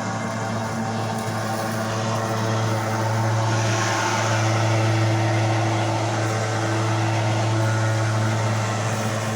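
Lawn mower engine running steadily at one pitch, with a swell of louder rushing noise through the middle.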